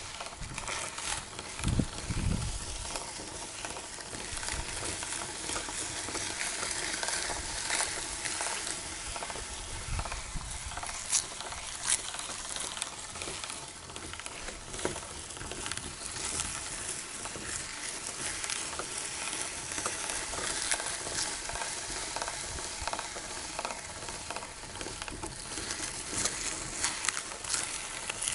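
Meat grinder crunching waffles: a continuous dense crackle of breaking, grinding waffle with scattered sharper clicks, and a couple of low thumps early on and about ten seconds in.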